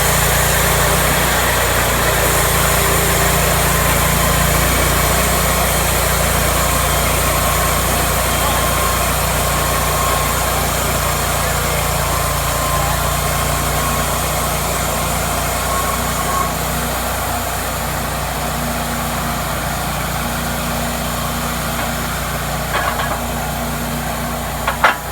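Cook's MP-32 band sawmill engine idling steadily, with a couple of short sharp clicks near the end.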